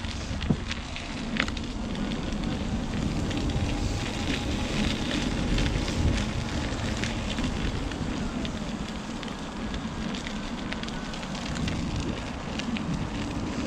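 Electric unicycle riding along a rough forest trail: a dense crackle of small clicks from the tyre rolling over the ground, over a steady low wind rumble on the microphone and a faint steady motor whine.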